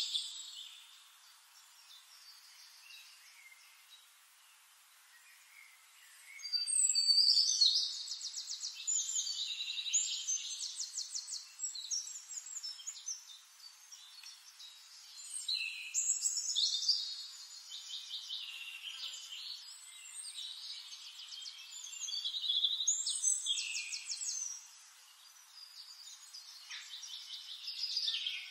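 Birds singing in several bouts of rapid, high-pitched trills and chirps, after a faint first few seconds.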